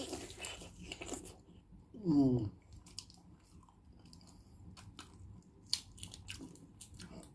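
Close-up chewing and mouth sounds of someone eating balut, a boiled fertilised duck egg: soft wet smacks and clicks. A brief falling vocal sound comes about two seconds in.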